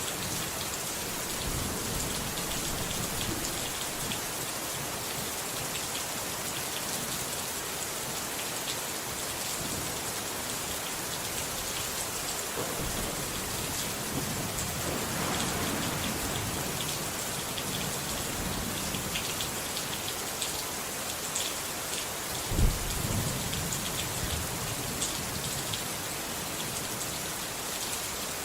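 Steady rain falling, with a single low thunder crack and a short rumble about two-thirds of the way through.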